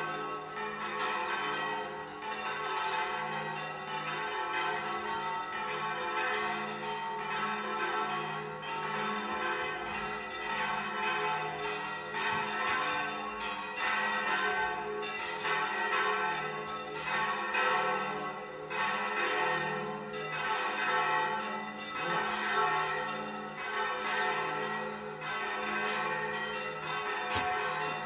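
Church bells in a tower ringing a continuous peal, strike after strike overlapping over a steady low hum of the bells' sustained tones.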